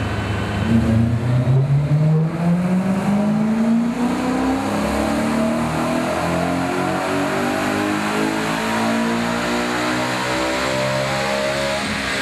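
BMW M3's 4.0-litre V8, fitted with Fabspeed high-flow sport catalytic converters and an X-pipe, under full load on a chassis dyno. The revs climb steadily through the pull, rising quickly over the first few seconds and then more gradually.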